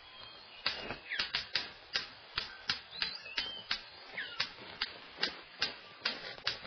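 Male superb bird of paradise in courtship display: a steady run of sharp clicks, about three a second, with a few short whistled calls between them.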